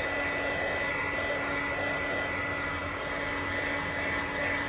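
Handheld craft heat tool blowing steadily to dry wet ink-sprayed watercolor paper, a constant rushing air noise with a faint steady whine.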